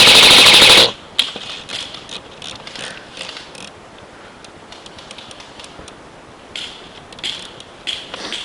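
Airsoft rifle firing a long full-auto burst close by, cutting off about a second in, then scattered quieter airsoft shots and clicks, with short bursts of fire again near the end.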